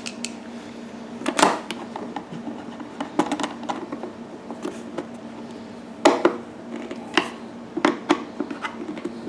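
Scattered clicks and light knocks of hard plastic and small metal parts being handled, with a few sharper taps about a second and a half in and again about six seconds in, over a steady low hum.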